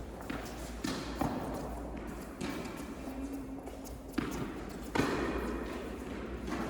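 Tennis ball being struck by rackets and bouncing on an indoor court during a rally: several sharp hits at uneven intervals, each with a short echo in the hall.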